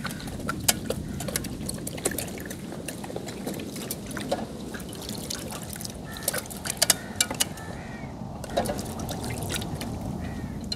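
Water pouring and trickling, with many small splashes and clicks.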